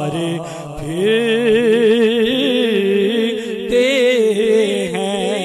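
A man's solo voice reciting an Urdu naat through a microphone with no instruments, holding a long ornamented note with a wavering vibrato. It breaks for a short breath just before a second in.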